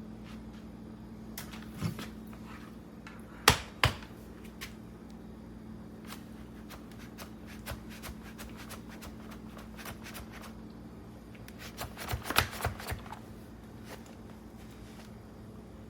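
Sharp plastic clicks and knocks from a steam mop being handled: a few single knocks, two of them close together about three and a half seconds in, then a quick run of clicks about twelve seconds in, over a steady low hum. No steam hiss is heard.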